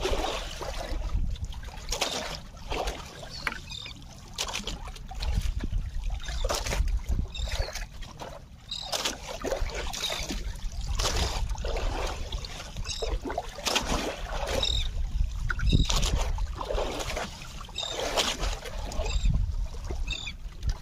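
Sea water slapping and splashing against the hull of a small boat every second or two, over a steady low rumble.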